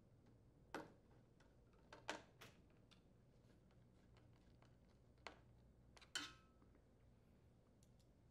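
Faint scattered clicks and taps of a screwdriver and the range's metal and plastic panel parts being handled, about seven in all over near silence. The loudest comes about six seconds in, with a short ring.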